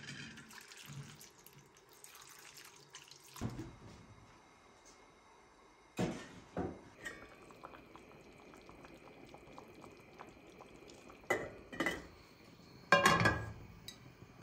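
Water poured from a metal pitcher over green onions in a metal bowl, trickling away within the first couple of seconds. Then a few sharp knocks of metal pots and pans, the loudest clatter about a second before the end.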